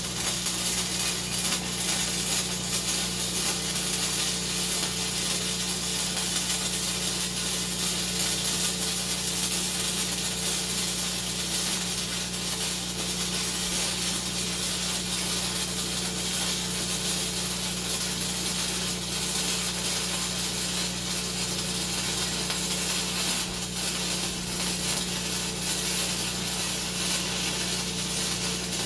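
Gasless flux-core MIG welding arc crackling steadily as a long continuous bead is run on heavy steel plate, with a steady low hum underneath.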